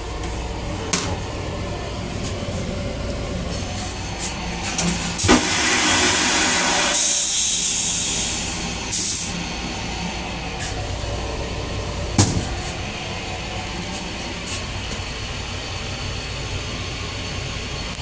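LIRR M9 railcar restroom toilet flushing: a sudden loud rushing hiss about five seconds in that tails off over about two seconds, with a brief second hiss near nine seconds. Underneath, the steady rumble of the moving train, with a sharp knock near the start and another about twelve seconds in.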